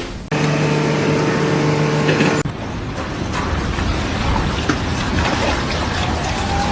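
A steady held horn-like tone for about two seconds, then continuous rumbling engine noise from a heavy vehicle or machine, with scattered clicks and knocks.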